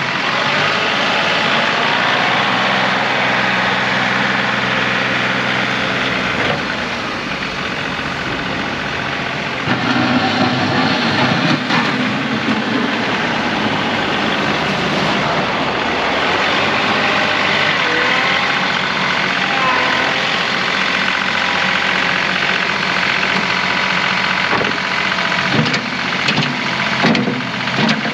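John Deere 2038R compact tractor's three-cylinder diesel engine running steadily. Its level drops about seven seconds in and picks up again about ten seconds in.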